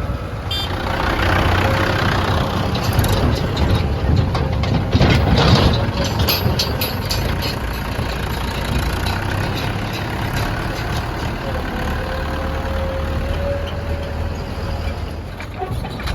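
Heavy diesel engines of a backhoe loader and tractors running steadily at a mud-loading site, with a thin steady whine on top and a run of clattering knocks around the middle.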